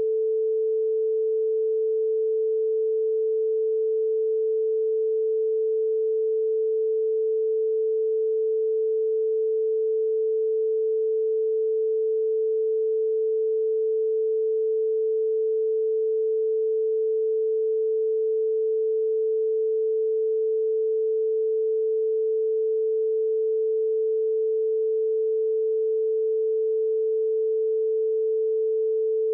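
A steady, unbroken pure electronic tone at one pitch, put in place of the recording's speech to mask a censored passage of the interrogation.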